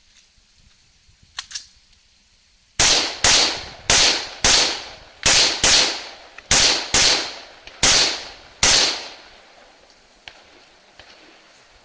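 A string of about ten rifle shots over some six seconds, fired loosely in pairs, each report ringing out briefly. This is typical of a practical rifle stage engaging several targets.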